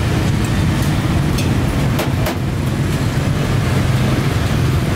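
Steady low engine rumble of street traffic, with two short clicks about two seconds in.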